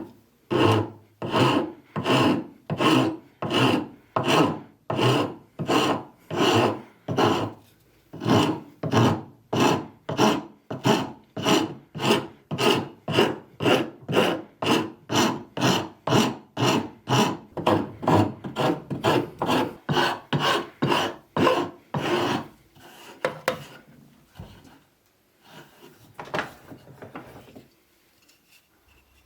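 Hand filing: steady back-and-forth scraping strokes, about two a second, which stop about 22 seconds in and give way to a few irregular scrapes.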